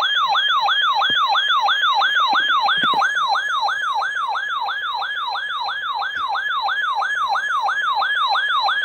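Weather alert radio's siren-like alarm sounding for a tornado warning: one pitched tone sweeping rapidly and repeatedly, about three sweeps a second.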